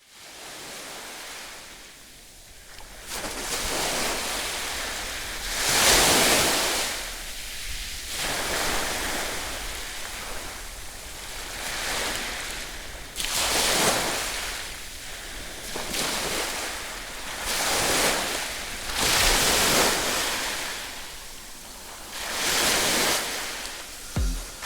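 Ocean surf: waves breaking and washing up the beach in repeated swells of rushing noise every few seconds, the loudest about six seconds in.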